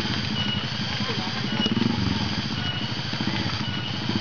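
Trail motorcycle engine running steadily at idle, with a short high chirp repeating at a steady pace over it.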